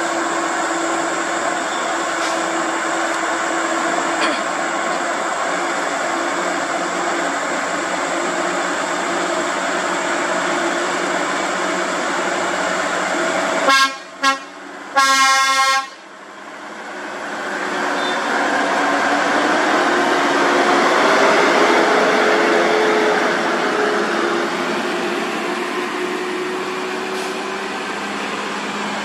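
A heavy truck's diesel engine runs and pulls uphill. About fourteen seconds in, a truck horn sounds three times: two short toots and then one blast about a second long. Afterwards the engine grows louder as a heavy truck passes close by.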